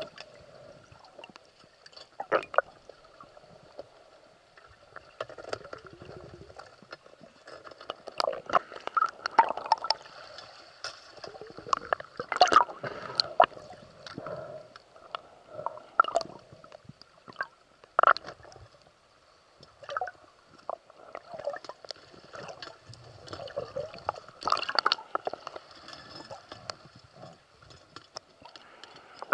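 Underwater water sounds: irregular gurgling, bubbling and popping, in clusters a second or two apart with quieter stretches between.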